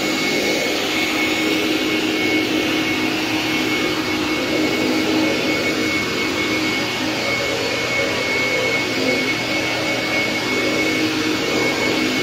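Craftsman 10-gallon, 6-horsepower wet/dry shop vac running steadily as a blower, its hose connected to the exhaust port, with air rushing from the nozzle. A steady high motor whine sits over a lower hum and the rush of air.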